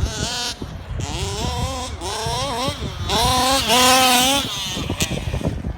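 Small two-stroke petrol engine of a 1/5-scale HPI Baja RC car revved in about five short throttle blips, each rising and falling in pitch, the strongest ones near the middle.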